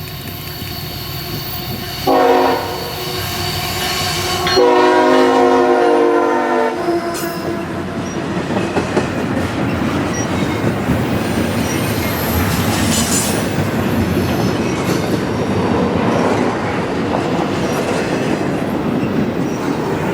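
Freight locomotive horn sounding a short blast and then a longer one, followed by the train passing close by: a steady, loud rumble and clatter of wheels and cars on the rails, with faint wheel squeal.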